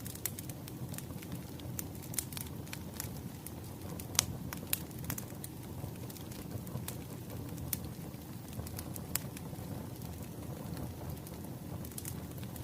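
Wood fire crackling: a steady low rumble of burning logs with irregular sharp pops and snaps, a few louder ones about four and five seconds in.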